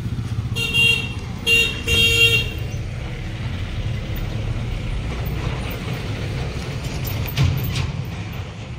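A vehicle horn honking three short times about a second apart, the last blast the longest, over a steady low rumble of road traffic.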